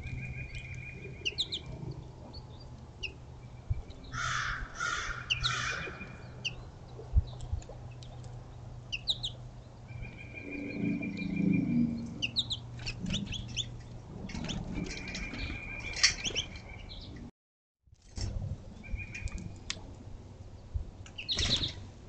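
Wild birds calling around a seed feeder: scattered short chirps, with three loud calls in a row about four seconds in. The sound cuts out briefly about seventeen seconds in.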